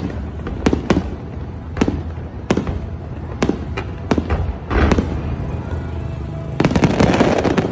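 Fireworks going off: a string of sharp bangs at irregular intervals of about half a second to a second, then a dense burst of crackling near the end that stops abruptly.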